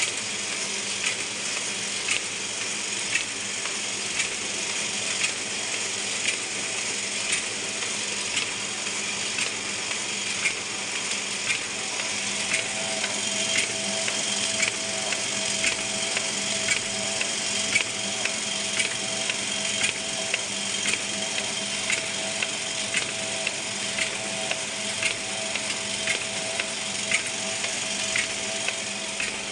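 Ryobi 3302H two-colour sheet-fed offset printing press running at full speed, about 10,000 sheets an hour: a steady mechanical running noise with evenly repeated sharp clacks as the sheets are fed and delivered.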